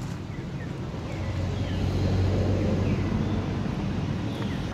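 A low, steady engine hum that swells to its loudest about halfway through and then eases off.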